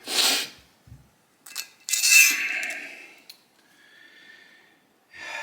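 Grease being squeezed out onto motorcycle steering-stem parts: a short hiss, a couple of light knocks, then a longer sputtering squeak with a thin whine fading after it.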